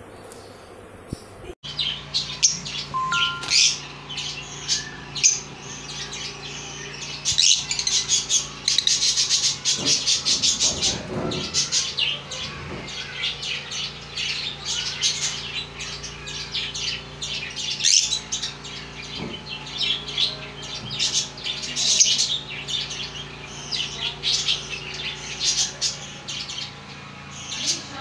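Caged lovebirds chattering: a dense, continuous run of rapid high-pitched chirps that starts abruptly about one and a half seconds in.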